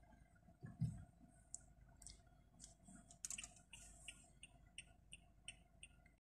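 Near silence inside a slowly moving car, with a soft thump about a second in and, from about halfway, faint quick regular ticking.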